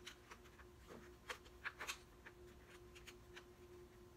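Faint, scattered clicks and taps of small plastic anatomy-model pieces being handled and fitted, several close together between about one and two seconds in, over a faint steady hum.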